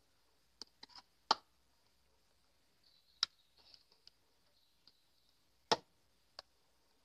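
A steel ladle knocking against a bowl while stirring thick dosa batter: a handful of sharp, uneven clinks, loudest about a second in and again near the end.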